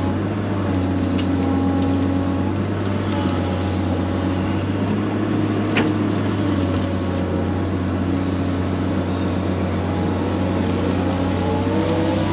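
Excavator's diesel engine running steadily under load, with hydraulic whine rising and falling in pitch as the boom and bucket move. A single sharp metal clank about six seconds in.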